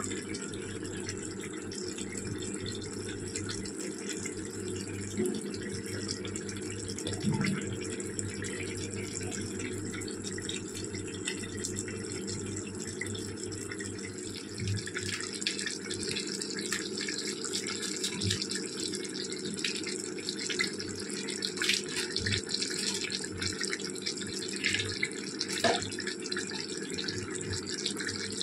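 Chicken curry simmering in an iron kadai on a gas stove: a steady, watery bubbling hiss with scattered small pops.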